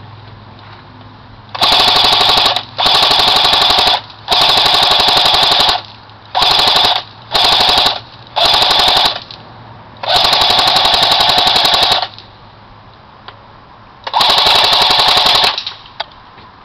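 A&K M60E4 (Mk43 Mod 0) airsoft electric gun firing on full auto in eight bursts of rapid-fire clicking, each between about half a second and two seconds long. The shortest bursts come near the middle, the longest about ten seconds in, and the last after a two-second pause.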